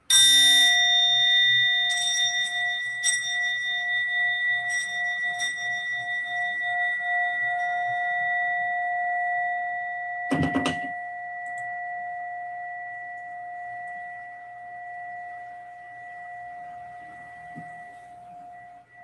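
Small singing bowl struck once, ringing with a wavering lower tone and a steady higher tone that slowly die away. A short knock comes about halfway through.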